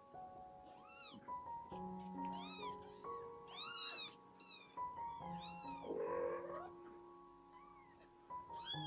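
Newborn kittens mewing: a string of short, thin, high-pitched cries that rise and fall in pitch, with a lower, rougher call about six seconds in. Soft background piano music plays underneath.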